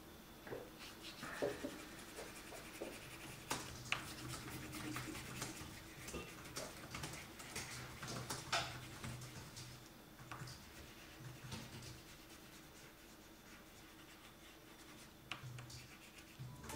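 Chunky crayon scribbling on paper: quick back-and-forth strokes rubbing and scratching, faint, with the strokes thinning out in the last few seconds.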